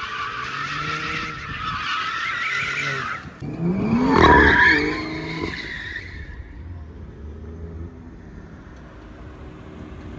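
Twin-turbo BMW 3 Series coupe drifting, its tyres squealing over the revving engine. About four seconds in comes a louder burst: the revs rise sharply with more squeal. After that the engine settles to a low idle.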